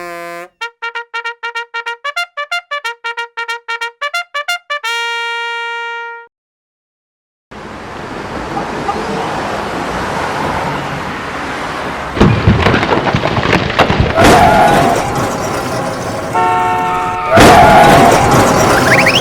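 Cartoon sound effects and music: a short jingle of quick staccato notes ending on a held note, then after a brief pause a loud, noisy machine-like rumble with heavy thuds and a short horn-like honk near the end.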